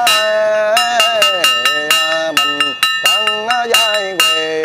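Ritual chanting in long, sliding held notes over a small metal bell struck about four times a second, its ringing carrying on steadily between the strikes.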